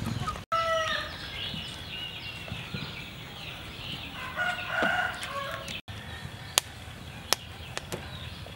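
Chickens clucking and calling, with short pitched calls about a second in and again around the middle. Near the end come a few sharp crackles from a wood fire.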